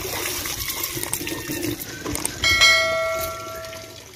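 Water gushing from a hand pump's spout into a metal pot. About two and a half seconds in comes a single clear metallic ring that fades away over a second or so.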